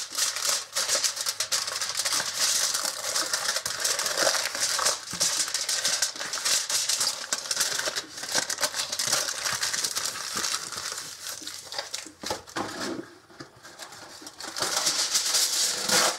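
Aluminum foil crinkling and crackling as a baked potato is rolled up tightly in a sheet of it. It eases off briefly about thirteen seconds in, then crinkles again near the end.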